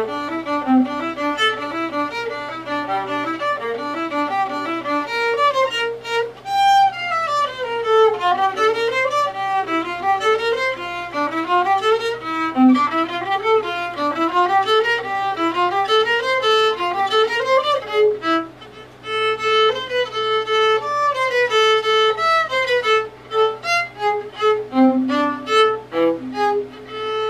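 A violin played solo. It moves through quick running passages that sweep down and back up in fast scale-like runs, then shorter separated notes with brief breaks, and settles on a held note near the end.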